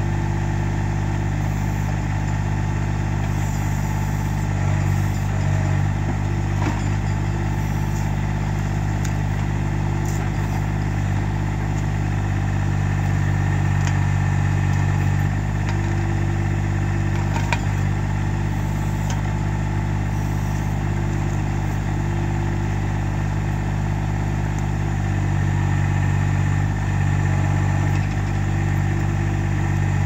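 Massey Ferguson GC1710 compact tractor's three-cylinder diesel running steadily while its backhoe digs at a tree stump, the engine note swelling a few times as the hydraulics take load. A couple of short, sharp knocks stand out, about 7 and 17 seconds in.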